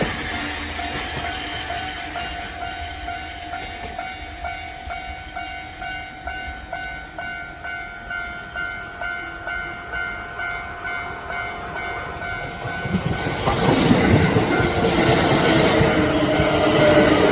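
A repeating ringing tone pulses steadily for the first dozen seconds. About thirteen seconds in, a Kintetsu electric train arrives and passes close by, loud, with the clickety-clack of its wheels over the rail joints.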